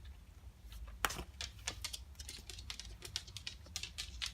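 Irregular light clicks and taps from spider enclosures and containers being handled and set down, with one sharper click about a second in.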